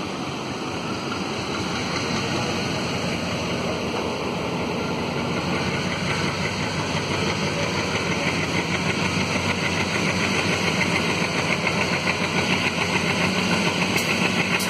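ALCo WDG-3A diesel locomotive's turbocharged 16-cylinder engine working hard at top notch as it accelerates the passenger train, mixed with the running noise of the coaches. The sound grows steadily louder, with a fast pulsing coming up from about halfway as the train picks up speed.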